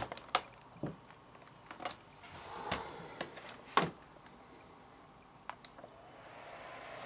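HP laptop being opened and switched on: a string of sharp clicks and knocks from the lid hinges and the power button, the loudest a little under four seconds in, with a double click at about five and a half seconds. A soft hiss then builds as the machine powers up, likely its cooling fan spinning up.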